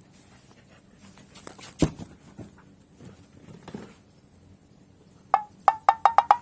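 Light pattering and scuffling, then near the end a fast run of short, high yips from a Siberian husky, about eight a second.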